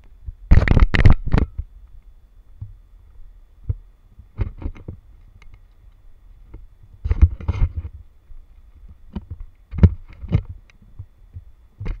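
Irregular clusters of knocks and rattles, a few seconds apart, over a faint low rumble: handling noise from an action camera being jostled as it moves.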